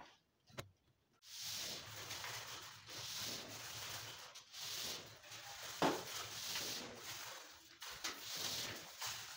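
Electrical cable rubbing and scraping as it is pulled by hand through conduit out of a wall socket box, in uneven strokes, with a sharp click about six seconds in.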